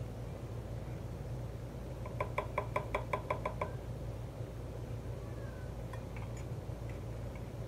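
A utensil tapping a white ceramic bowl: a quick, even run of about ten light, ringing clinks lasting about a second and a half, starting about two seconds in. A faint, steady low hum sits underneath.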